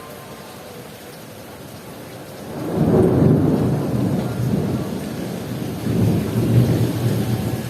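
Heavy rain falling steadily, then a long low rumble of thunder that starts about two and a half seconds in, swells quickly, eases, and rolls up again a little past the middle.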